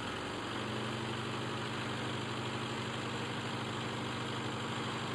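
Car engine idling steadily at a constant, even pitch.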